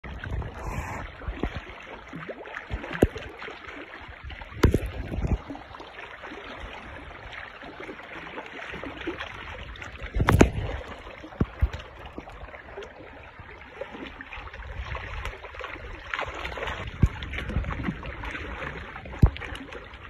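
Wind on the microphone and small waves lapping against the rocks, with scattered knocks and rustles from handling; the loudest knock comes about ten seconds in.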